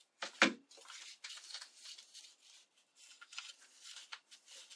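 A single knock about half a second in as a hot glue gun is set down on the table, then paper rustling and crinkling as a book-page petal is rolled and pinched into a cone between the fingers.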